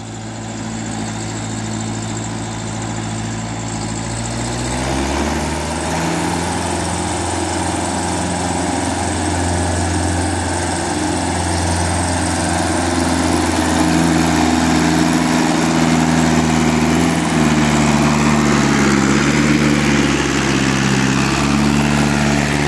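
Ford 5000 tractor's diesel engine working under load as it pulls a trailer of wet gravel up a ramp, growing louder as it approaches. The revs rise about five seconds in and waver later as it climbs.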